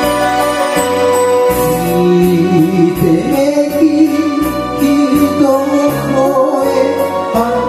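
Karaoke backing track of a Japanese popular song with a singer's voice over it, the voice coming in about two seconds in and singing through to the end.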